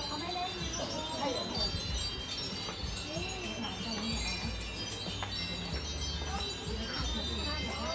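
Metal chimes ringing continuously in many overlapping high tones, over faint crowd voices.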